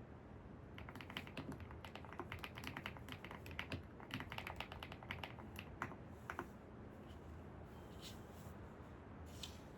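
Computer keyboard typing in quick runs of key clicks for about six seconds, then stopping, with a couple of softer isolated taps near the end. A steady low ambient hum lies underneath.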